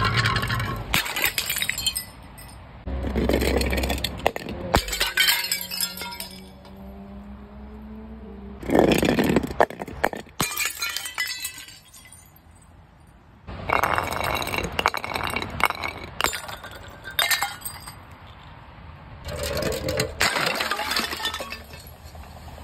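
Glass bottles and jars smashing on hard ground and concrete steps, about six separate crashes, each followed by shards tinkling and scattering.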